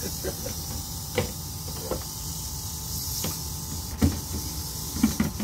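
Eastern diamondback rattlesnake rattling in a steady high buzz, the alarm of a frightened, defensive snake being handled, with a few knocks of the snake stick and plastic box, the loudest about four seconds in.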